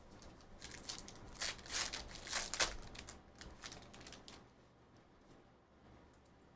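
A Panini Prism Basketball hobby pack wrapper being torn open and crinkled: a run of crackling rips in the first three seconds, then a few faint rustles.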